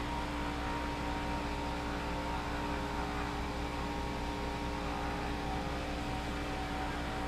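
Steady machine hum: a constant drone holding a few fixed tones over an even hiss.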